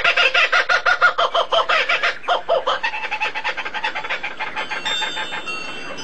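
A fowl's rapid cackling calls, about eight or nine notes a second, breaking off about two seconds in and trailing away in quieter, quicker clucks.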